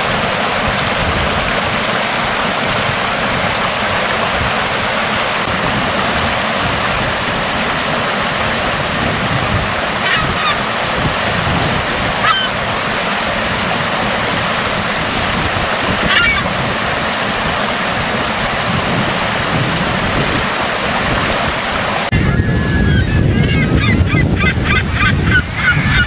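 Steady rush of shallow water running and lapping over rocks, with a few faint short bird calls. About 22 s in the sound changes to a lower, heavier surf rush, with a quick series of gull calls over it.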